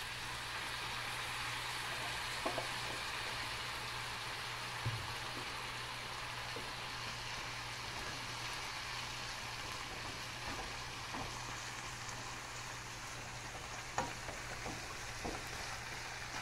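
Longaniza sausage and diced pineapple sizzling steadily in a frying pan, with pineapple juice just poured in. They are stirred with a spatula that clicks against the pan a few times.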